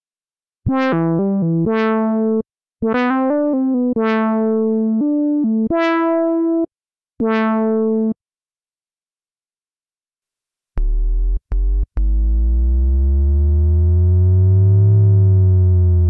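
Cherry Audio Miniverse, a software Minimoog emulation, playing a monophonic lead line of short notes, each bright at the attack and then mellowing. After a pause, a second preset sounds a couple of short deep bass notes and then one long held note whose layered tones glide apart and back together.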